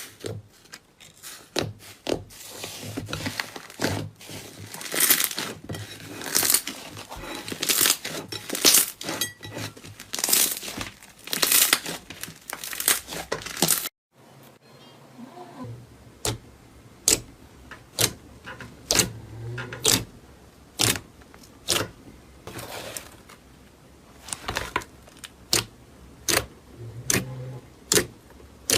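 Slime being squeezed and pressed by hand, giving off irregular sharp crackling pops and clicks as trapped air bursts. The pops come in dense runs at first and turn into sparser, single snaps after a short break about halfway.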